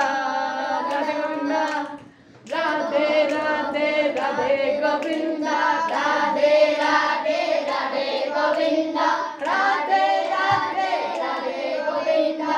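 A group of children singing a Hindu devotional chant (kirtan) together, clapping their hands along. There is a brief break about two seconds in before the singing picks up again.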